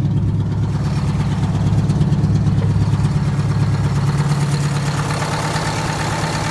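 Detroit Diesel 8V71 two-stroke V8 diesel running at a steady idle, just after being started with its air starter.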